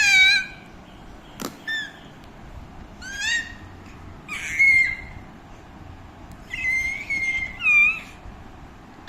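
A cat, most likely a kitten, meowing repeatedly in high-pitched calls, some short and rising, some drawn out, about five in all. There is a single sharp click about one and a half seconds in.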